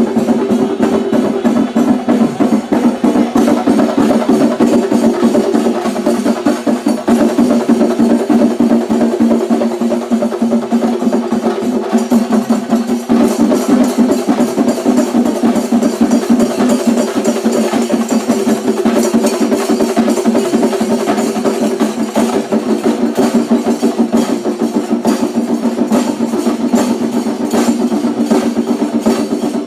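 Loud, fast drumming from a festival percussion ensemble, with quick sharp stick strokes, over a steady droning tone.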